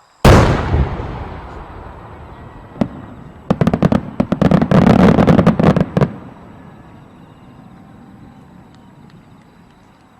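A firework shell bursts with one loud bang about a quarter second in that dies away over about two seconds. A single sharp crack follows, then from about three and a half seconds a rapid string of crackling bangs that stops suddenly near six seconds.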